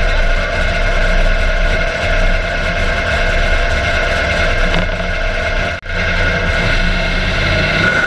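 Mega mud truck's engine running steadily at idle, heard from inside the cab, with a momentary break in the sound about six seconds in.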